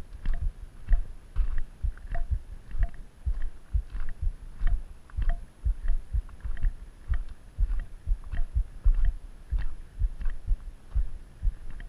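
Footsteps of a hiker walking on a gravel road, heard as a steady rhythm of dull low thumps with light crunching.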